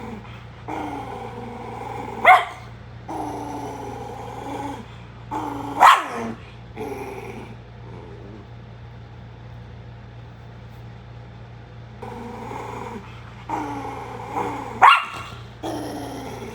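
Senior dog growling in long stretches, breaking into three sharp barks about two, six and fifteen seconds in: night-time aggression that the owner wonders may be dementia.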